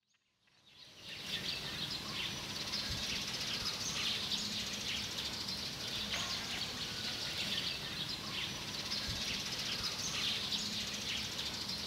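Outdoor ambience of many birds chirping over a steady background hiss, fading in about a second in.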